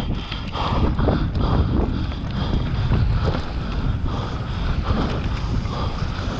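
Wind buffeting the camera microphone as a mountain bike descends a dirt singletrack at speed, with tyre rumble on the dirt and repeated knocks and rattles from the bike over bumps and roots.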